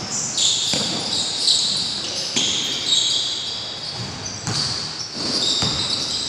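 Basketball play on an indoor court: sneakers squeak repeatedly on the floor, with several sharp thuds of the ball bouncing and feet landing, echoing in the large hall.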